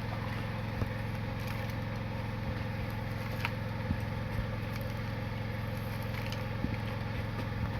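Homemade mini excavator's motor running steadily as it scoops sand: an even, low hum with a few light clicks.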